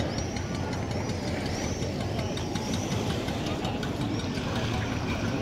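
Small tour boat's engine running at idle, a steady low hum, with repeated short high chirps above it.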